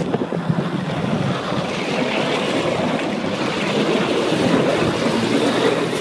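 Water jets of a flyboard rushing and spraying onto the sea, with wind buffeting the microphone and a boat engine running underneath.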